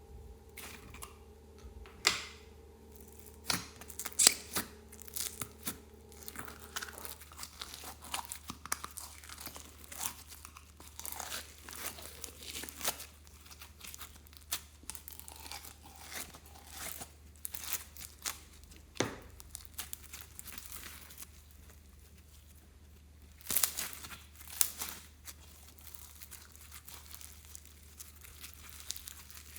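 Slime being squeezed, stretched and pressed by hand, giving irregular sharp pops, crackles and sticky tearing sounds, with louder bursts of popping about two and four seconds in and again near the end.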